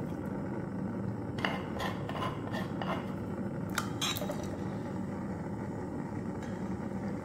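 A metal spoon clinking and scraping against a stainless steel pot as ingredients are tipped in, about seven knocks in the second to fourth seconds, over a steady low hum.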